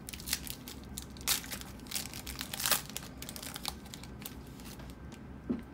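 Foil trading-card pack wrapper being torn open and crinkled by hand, in irregular crackles, loudest about a second in and again near three seconds.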